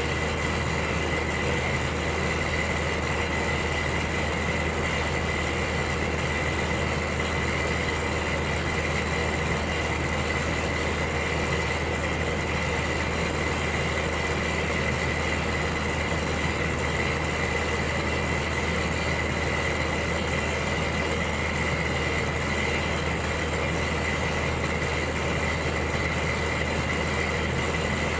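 Electric heater running with a steady hum and an even airy hiss, under a faint high steady whine.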